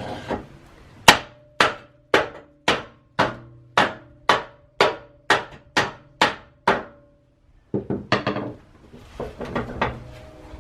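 Hammer striking the rusted-in stair-lift chair and its metal track: about a dozen sharp blows, roughly two a second, each with a short metallic ring. A few quicker knocks follow near the end.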